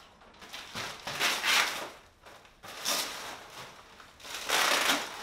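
Thick 6-mil plastic sheeting crinkling and rustling as it is pulled down and bunched up by hand, in three bursts, the last the loudest.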